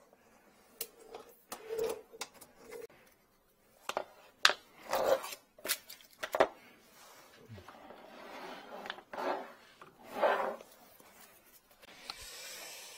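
Handling noise from a flex-shaft drain-cleaning cable and its aluminium tool case: scattered clicks and knocks, busiest from about four to six and a half seconds in, with rustling and rubbing between them.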